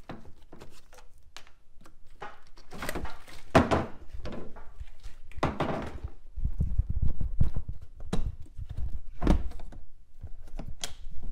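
Plastic clicks, knocks and scraping as a plastic box in a pickup's engine bay is unclipped and its lid lifted off, with two longer rattling scrapes a few seconds in and dull thuds in the second half.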